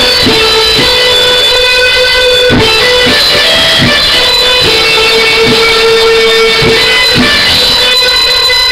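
Rock ballad music with electric guitar, loud and continuous, with regular beats underneath.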